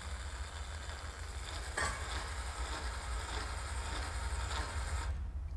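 ABI electric actuator running on its geared motor: a steady mechanical whir with a click a little under two seconds in, stopping about five seconds in.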